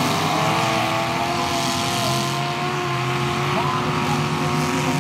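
Demolition-derby pickup trucks' engines revving hard, the main engine note climbing briefly at the start and then held at high, steady revs.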